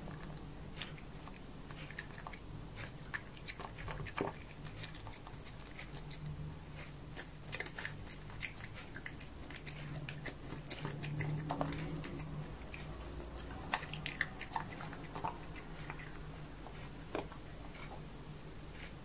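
Cat eating soft wet pâté food: close-up chewing with rapid, small wet clicks and smacks of its mouth, thickest in the middle of the stretch and thinning out near the end.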